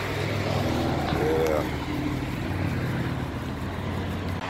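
A vehicle engine idling steadily, with brief voices in the background about a second in and again a little later.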